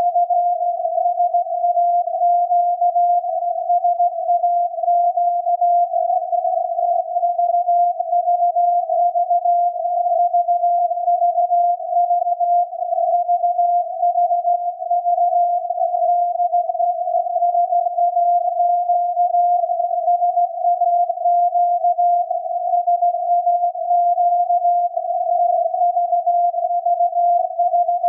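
The 17.2 kHz VLF signal of SAQ's Alexanderson alternator transmitter, received by radio and heard as a tone of about 700 Hz. It runs without a break, slightly rough and fluttering.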